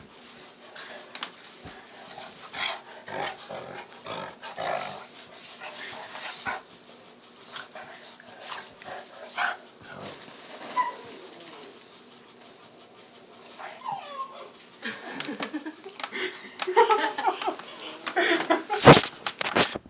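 A puppy and its mother dog play-fighting, mouthing each other, with irregular short dog noises and scuffling. The sounds get busier and louder in the last few seconds. A steady low hum runs underneath until then.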